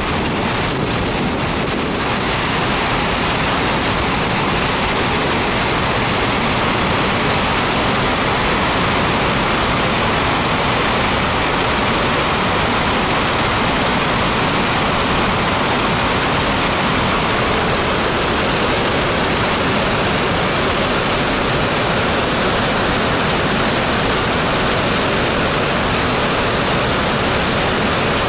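Floodwater rushing down a dam's concrete spillway and pouring out as spray, a steady loud rush of water noise.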